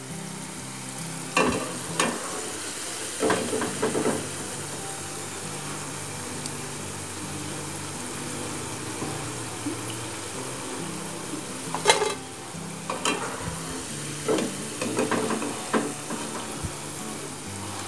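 Battered cauliflower florets deep-frying in oil in a kadai, a steady sizzle whose bubbling has settled down, the sign that the pieces are cooked. A steel slotted spatula scrapes and clinks against the pan a few times as the pieces are lifted out.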